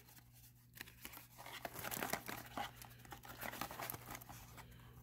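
A small white cardboard box being opened by hand: its flaps and the packaging inside rustle and crinkle in a quick run of soft scrapes and clicks.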